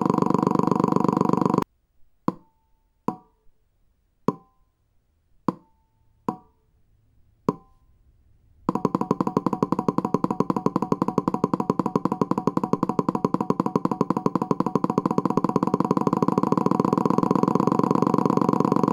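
Simulated three-cylinder engine firing from a firing-order demonstrator. A conventional even-fire inline three buzzes evenly and cuts off after about two seconds. Then the Triumph T-plane inline three's firing is played slowly as six single pops in an uneven short-long-long rhythm, its 180-270-270 degree firing interval. From about nine seconds in, the T-plane firing runs at speed as a steady, uneven buzz.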